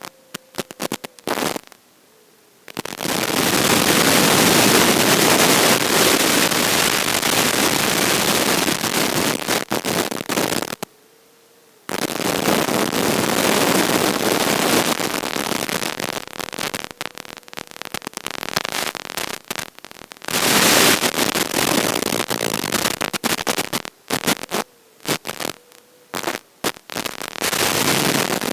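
Crackling static from an analog FPV video receiver, a loud hiss that cuts in and out abruptly as the radio link breaks up. It drops out for about a second near the middle and flickers on and off toward the end.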